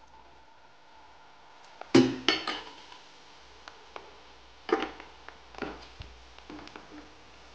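A perforated steel skimmer knocking and clinking against a non-stick kadai as puris deep-fry in oil: a quick cluster of three sharp clinks about two seconds in, another strong clink near the five-second mark, then lighter taps, each with a short metallic ring.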